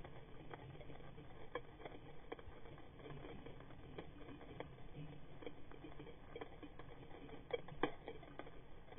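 Irregular sharp clicks and crackles heard underwater on a coral reef, the crackle of snapping shrimp, over a faint low water hiss. A couple of louder snaps come near the end.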